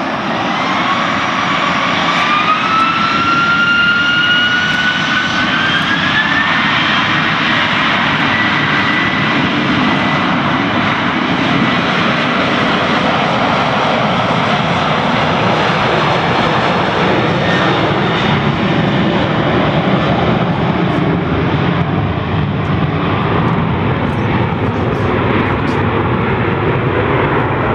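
Boeing 737 BBJ's twin CFM56-7 turbofan engines spooling up to takeoff thrust, a whine rising in pitch over the first several seconds, then steady loud jet noise through the takeoff roll.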